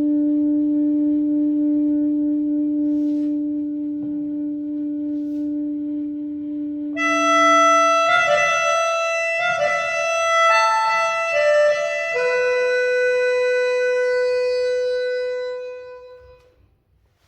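Slow music of long held notes: alto saxophone with a recorded backing track. A brighter line enters about seven seconds in and steps through a few notes, settles on one held note, and the music fades out near the end.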